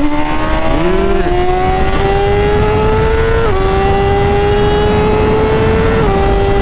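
2016 BMW S1000RR inline-four engine under hard acceleration, its pitch climbing steadily, with an upshift about three and a half seconds in and another near the end. Wind rush on the microphone runs underneath.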